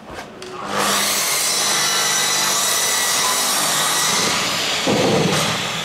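A workshop power tool running steadily for about four seconds, then stopping, with a short low rush as it stops.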